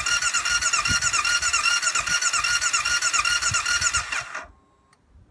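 Electric starter motor cranking the CRF500L's Honda CB500X parallel-twin engine: a loud, steady high whine with a rhythmic pulse. The engine does not catch, and the cranking stops suddenly about four seconds in.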